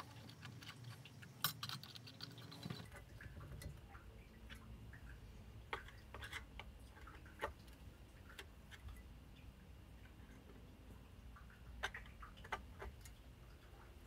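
Faint, scattered small clicks and taps, irregular and a second or more apart, from hands fitting hardware on a pair of CPU tower heatsinks.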